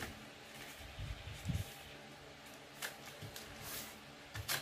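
A sheet of paper being folded, creased and opened out on a wooden tabletop: faint rustling and soft knocks of hands on the table, with two short sharp paper swishes in the second half.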